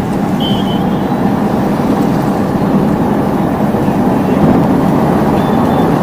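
Steady road and engine noise heard inside a moving car's cabin, an even low rumble of tyres and motor at cruising speed.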